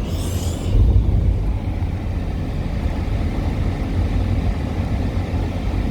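Steady low rumble of engine and road noise inside the cabin of a 2002 Toyota Solara convertible on the move.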